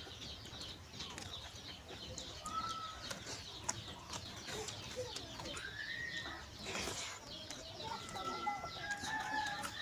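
Birds calling: many short, quick chirps, with a few longer pitched calls and one rising-and-falling call about six seconds in.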